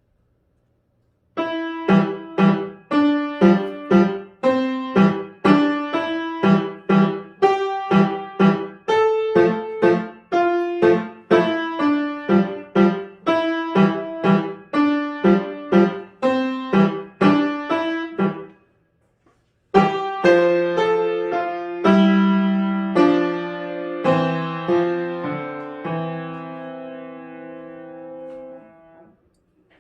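Solo piano playing a short piece: a steady stream of single struck notes, then after a brief pause a few held chords that ring out and stop near the end.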